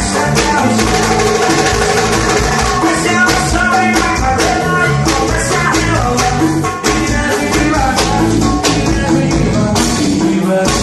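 Loud recorded music with a steady beat: a Brazilian pop track, probably a DJ mix, with a singing voice over drums and percussion.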